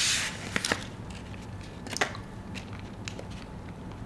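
Eating a kunafa-filled chocolate bar: a crisp crunch at the start, then a few sharp clicks and soft chewing sounds.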